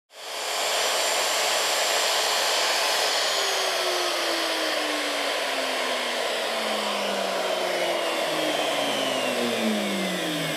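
Plunge router with an upcut spiral bit running loudly at full speed, then winding down: its pitch falls steadily over the last two-thirds, as when the motor is switched off and coasts to a stop.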